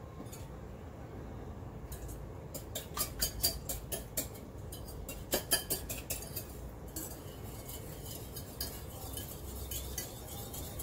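Wire whisk beating eggs in a glass bowl: a fast run of clinks and taps of the whisk against the glass, starting about two seconds in and growing lighter after the middle.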